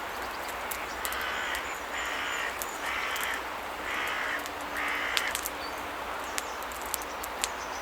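A crow cawing five times in a row, about one caw a second, with a few sharp clicks scattered through.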